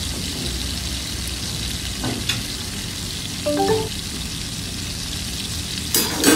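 Food sizzling in a frying pan held over a gas burner, a steady frying hiss. A short pitched sound comes about halfway, and two sharp clicks come near the end.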